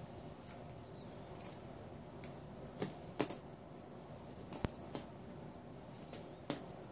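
Quiet room hiss with a handful of sharp, separate clicks and taps, from a kitten and a plastic wand toy at a sliding-door threshold.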